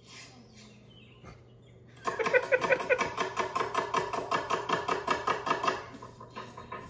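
Knife rapidly chopping onions on a board: an even run of quick sharp strikes, about six a second, starting about two seconds in and fading out near the end.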